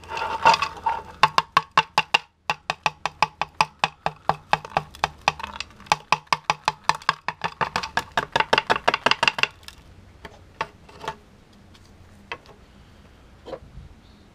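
Rapid, evenly spaced knocking, about four sharp ringing taps a second, of a paper firework shell against a clear plastic tray. It stops about nine and a half seconds in, leaving a few scattered clicks.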